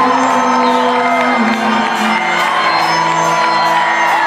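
Live synth-rock band playing, heard loud from within the crowd: long held synth notes over a steady beat, with a gliding vocal line.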